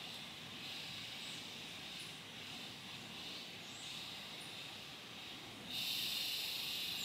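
Garden ambience: a steady high hiss with a few faint, brief high chirps, then a louder hissing buzz that starts near the end.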